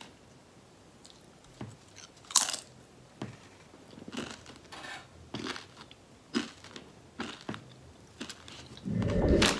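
Close chewing with crisp crunching bites of crunchy food, a bite every second or so, the loudest about two and a half seconds in. A dull low rumble comes in near the end.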